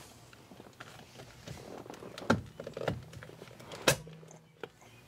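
A steering-wheel horn cover being pressed onto the wheel hub by hand. Light handling rattles and small clicks, with two sharp clicks about a second and a half apart as it is pushed into place.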